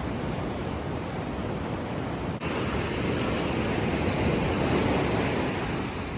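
Small waves washing against a rocky shore, with wind rumbling on the microphone. The noise changes abruptly about two seconds in and swells a little before easing off near the end.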